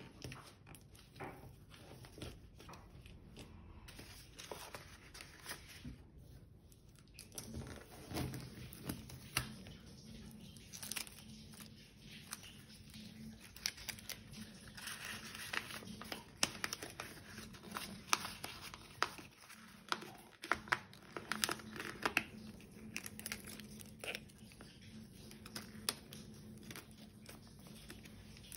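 Paper rustling and crinkling as a rolled paper sword and its green paper handle are handled, fitted together and pressed down, with scattered small taps and clicks against the tabletop.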